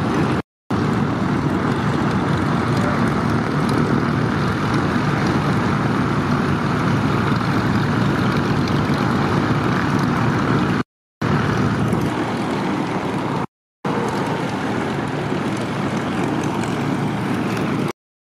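Propeller aircraft engines running steadily on the airfield, heard as a continuous drone. It drops out into brief silences three times and stops just before the end.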